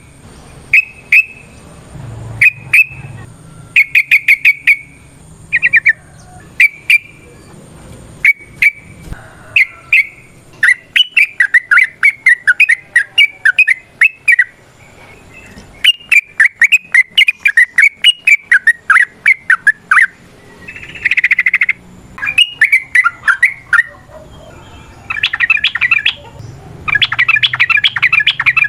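Yellow-vented bulbul (trucukan) singing: short bursts of rapid repeated notes, longer warbling phrases in the middle, and fast rattling trills near the end.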